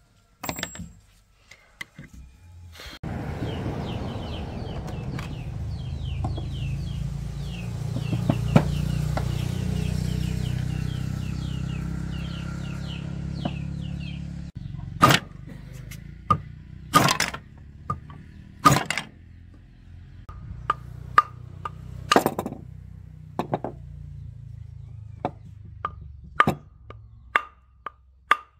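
A wooden block striking a planer's motor armature and its metal gear plate, knocking the shaft loose: a series of sharp knocks one to two seconds apart in the second half. Before that, a steady low hum with fast faint ticking runs for about ten seconds and cuts off abruptly.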